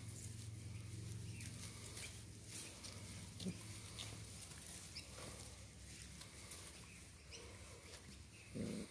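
Doberman puppies play fighting in grass, giving faint scuffling and rustling with a few small clicks. There is a short puppy vocalization near the end.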